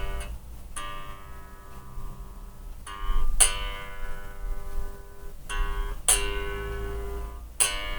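Unamplified electric bass guitar strings plucked one note at a time, about seven notes, each left to ring out. The pickups' battery is dead, so only the bare strings are heard.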